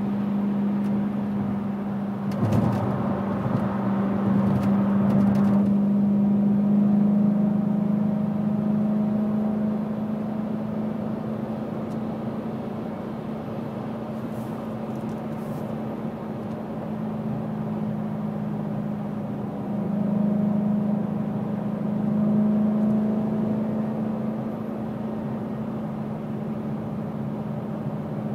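BMW E92 M3's V8, fitted with a Fabspeed resonated X-pipe, Fabspeed high-flow catalytic converters and an Agency Power exhaust, droning steadily at highway cruise, heard inside the closed cabin with tyre and road noise. The exhaust drone swells a little a few seconds in and again past the middle as the throttle is eased on.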